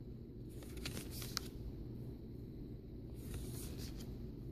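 Quiet room tone: a steady low hum with a few faint light clicks.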